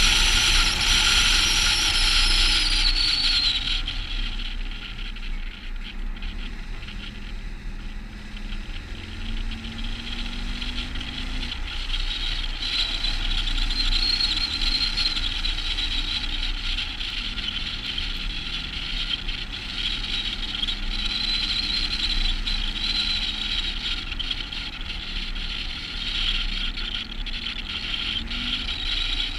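Volvo FH16 700 truck's 16-litre straight-six diesel running as the truck drives on a snowy road, heard under steady wind and road hiss. It gets quieter about four seconds in, and the engine note rises briefly a couple of times later on.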